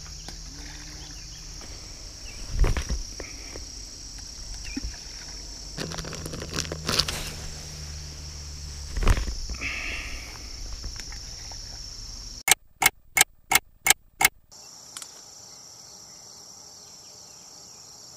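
Steady high-pitched chorus of crickets and other insects, with a few dull thumps from footsteps and handling in the grass. Near the end comes a quick run of six sharp clicks.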